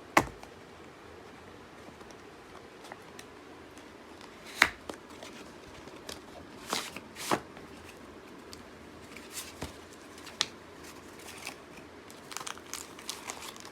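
A product box being opened and its packaging handled by hand: scattered clicks, rustling and crinkling, with a sharp snap about four and a half seconds in and a run of small ticks near the end.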